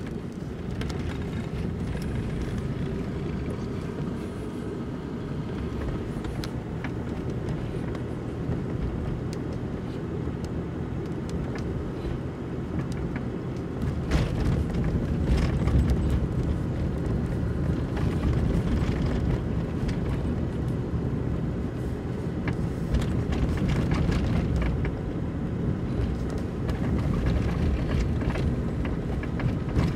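Car driving along a rough country road: a steady low rumble of engine and tyres with occasional knocks, getting louder about halfway through.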